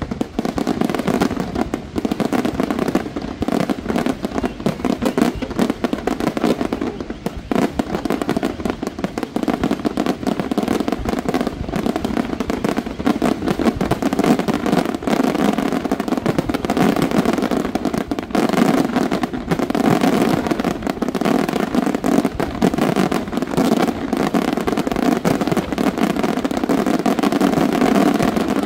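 Aerial fireworks in a dense barrage: shell bursts and crackling follow one another many times a second without a break.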